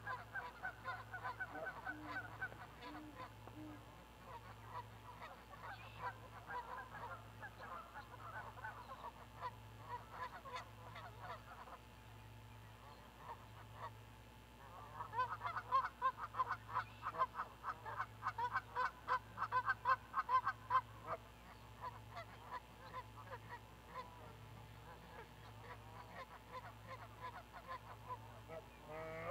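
Geese honking in quick repeated calls as they fly past. The calls grow loudest for several seconds about halfway through, then fade.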